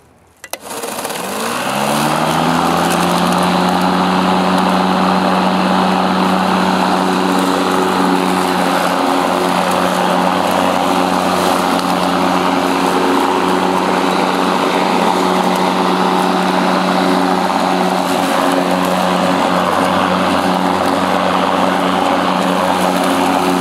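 Earthwise 24-volt cordless electric lawn mower starting up: the motor and blade spin up with a rising whine over about two seconds, then run at a steady whir.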